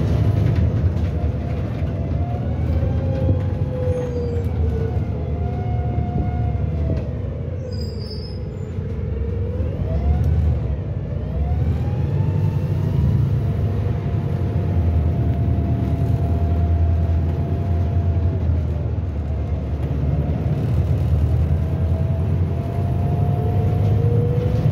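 Volvo B5TL double-deck bus heard from inside on the move: a steady engine and road drone with a whine that falls as the bus slows about eight seconds in, then rises again as it picks up speed.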